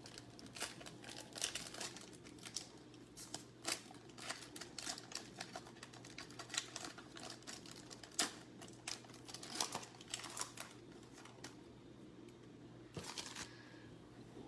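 Trading cards being handled and flipped through: irregular soft clicks and rustles as the cards slide and tap against one another.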